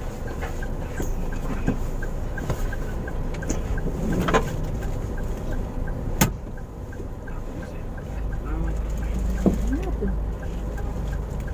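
Car stopped in traffic, heard from inside the cabin: a steady low engine and road rumble with a regular light ticking at about two to three a second. A sharp click comes about six seconds in.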